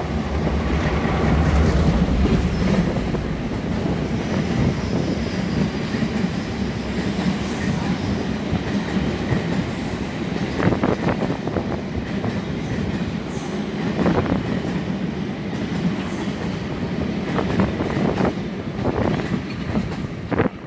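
Freight train of tank wagons passing close by, hauled by a Sri Lanka Railways M2-class diesel locomotive. The locomotive's engine rumble is loudest in the first few seconds. Then the wagons' wheels clatter over rail joints, with a few sharper clanks in the second half, and the sound drops off suddenly as the last wagon passes at the end.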